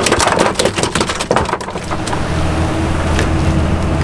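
Quick, irregular crackling knocks for the first two seconds or so. After that, a boat's engine runs with a steady low hum.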